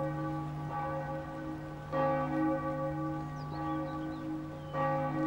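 Large church bell tolling slowly, struck about every three seconds: twice, about 2 seconds in and near the end, with each stroke ringing on into the next.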